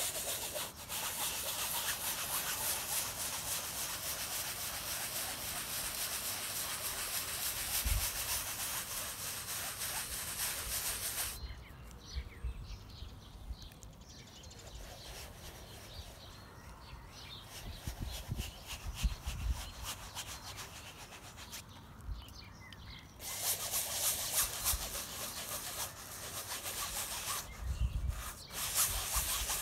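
A paintbrush scrubbing paint across a stretched canvas in fast strokes: a long spell of scratchy brushing, a pause of about ten seconds with only a few low thumps, then brushing again near the end.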